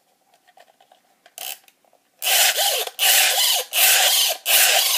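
Plastic airsoft flash mag (high-capacity magazine) being wound: a run of rasping ratchet strokes starts about two seconds in, four strokes each just under a second long with short pauses between them, as the winding wheel tensions the feed spring. Faint small clicks of handling come before the strokes.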